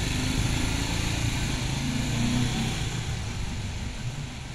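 Small motorcycle engine pulling away and receding, fading over the last second or two.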